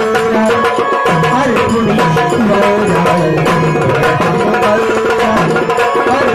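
Sambal, the paired Maharashtrian folk drum beaten with two sticks, playing a dense steady rhythm of strokes, with a melodic line rising and falling beneath it.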